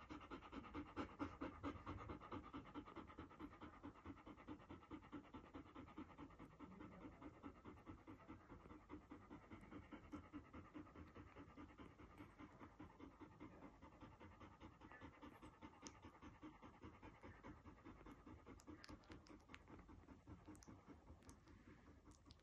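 Bernese mountain dog panting quickly and steadily, about three breaths a second, faint and fading slightly, with a few soft clicks near the end.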